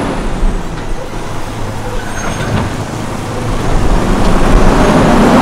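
Bulldozer engine running with a steady low drone under a noisy wash, growing louder near the end.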